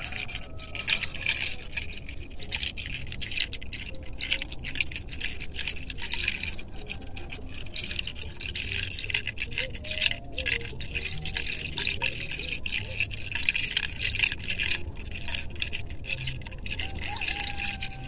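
Alder-wood massage spoon rubbing and scraping over cloth on a person's shoulders and back, a continuous scratchy brushing with many quick irregular strokes.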